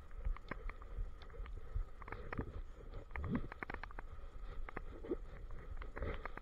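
Irregular clicking and knocking from a harness-mounted action camera jostled by a German shepherd walking on pavement, over a low rumble of handling noise.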